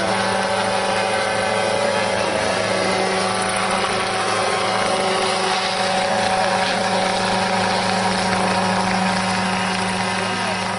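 Small unmanned crop-spraying helicopter in flight: its engine and rotors running at a steady pitch, a constant hum with a strong low drone.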